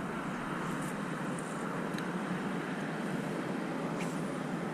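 Steady wind noise rushing over the microphone, with a few faint ticks.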